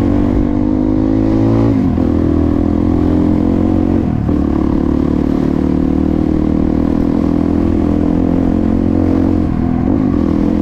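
Small trail motorcycle engine running through a newly fitted budget aftermarket exhaust while riding. The engine note rises and drops at two upshifts, about two and four seconds in, then holds at a steady cruise.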